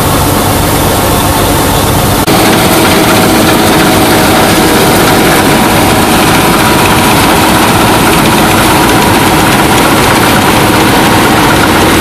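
Bizon Super Z056 combine harvester running under load, its six-cylinder diesel engine and threshing gear droning steadily. About two seconds in the sound changes suddenly and gets louder, as the combine is heard from beside it while it cuts and threshes rapeseed.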